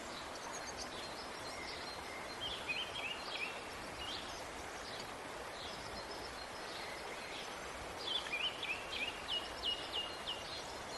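Wild birds singing in short, high-pitched repeated chirping phrases over a steady outdoor background hiss. The song comes in two spells, about two seconds in and again from about eight seconds in.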